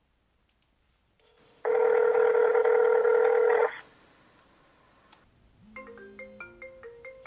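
A loud, steady electronic buzzing tone at one pitch, held for about two seconds. Near the end a mobile phone ringtone starts faintly: a quick melody of short electronic notes.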